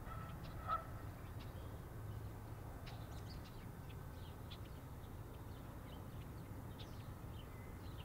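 Faint city ambience: a steady low hum of distant traffic, with small birds chirping now and then and one louder bird call under a second in.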